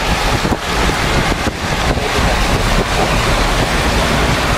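Floodwater rushing along a street, a loud steady wash of noise, with heavy wind buffeting the microphone.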